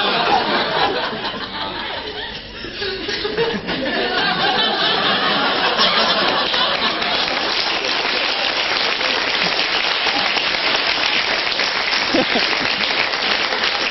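Studio audience laughing, giving way from about four seconds in to steady, sustained applause.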